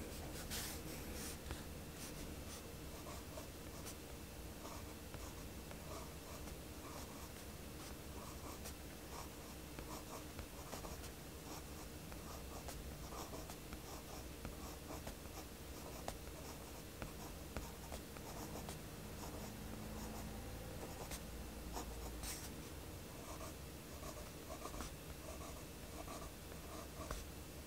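Pencil scratching on sketchbook paper in runs of short, quick strokes, with an occasional light tap.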